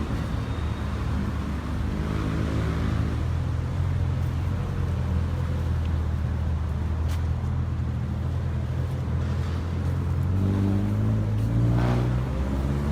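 Street traffic: the low, steady hum of vehicle engines, with one engine rising in pitch and passing close about ten to twelve seconds in.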